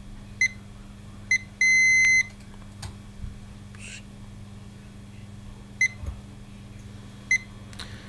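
Digital multimeter in diode mode beeping as its probes touch the laptop motherboard's power-on pins, bridging them to start the board: four short high beeps and one longer beep of about half a second near the two-second mark, over a steady low hum.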